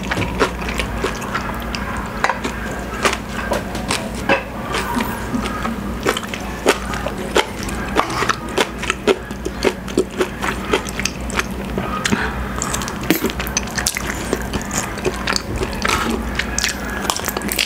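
Wooden spoon and fork clicking and scraping against a wooden plate while scooping up rice and leftover pork, with close-up eating sounds in between.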